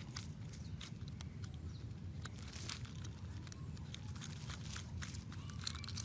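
A hand scraping and digging through dry soil and dead leaves to free a small toy truck: scattered crunches and rustles over a low steady rumble.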